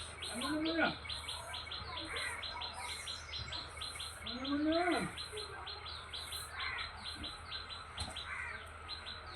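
Birds chirping in a fast, even series of short chirps, about five a second. Two longer, lower calls that rise and then fall in pitch come about a second in and near the middle.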